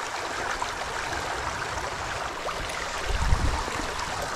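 Shallow river riffle running over cobbles: a steady rush of flowing water, with a brief low bump about three seconds in.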